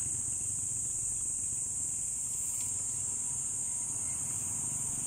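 Steady, high-pitched chorus of insects in roadside vegetation, over a low, even rumble.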